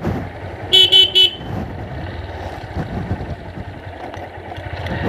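A horn gives three quick toots about a second in, over the steady running of a Honda CB Hornet 160R's single-cylinder engine.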